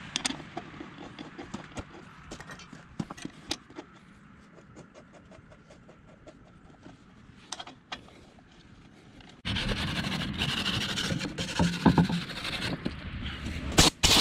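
Small metal clicks of bolts, washers and a combination wrench being worked on a bulldozer's steel steering clutch cover plate. About two-thirds of the way in, a loud rough scraping and rubbing noise starts, with a louder burst near the end.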